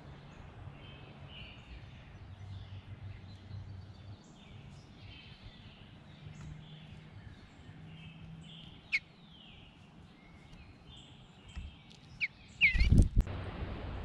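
Wild songbirds chirping and singing in the background, many short notes over a low outdoor hum, with a sharp click about two-thirds of the way in. Near the end, a loud close burst of knocks and scuffling on the wooden feeder board, with a sharp chirp over it, as a bird moves right at the microphone.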